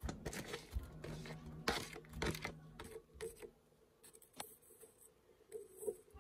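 Sliced onion tipped from a plastic bowl onto raw snake gourd pieces in a non-stick pan: a busy patter of rustles and soft taps over the first two or three seconds, then a few light taps near the end.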